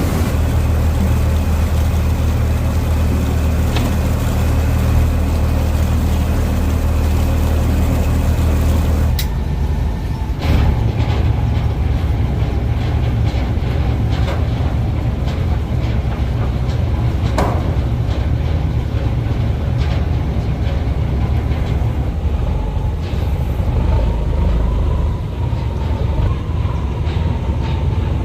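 A boat's engine running steadily at a constant low pitch. The sound changes abruptly about nine seconds in and then carries on running.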